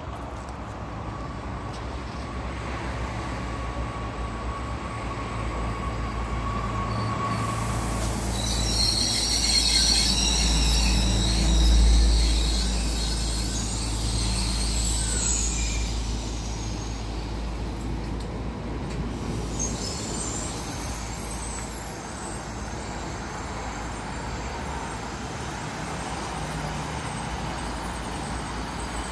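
Alstom AGC regional railcar running into the station, getting louder as it approaches. Its wheels and brakes squeal loudly as it passes close, from about eight to sixteen seconds in. It then stands at the platform with a steady hum.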